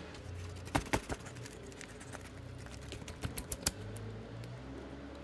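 Sharp clicks and taps of cat food being served onto a foam tray: three quick taps about a second in, then a run of four or five more a little past three seconds in, over a faint low hum.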